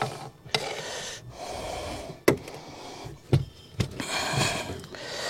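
Dish-soap water being rubbed onto a scooter tyre's bead and wheel rim as a mounting lubricant, heard as repeated scrubbing strokes. A few sharp knocks come in the middle.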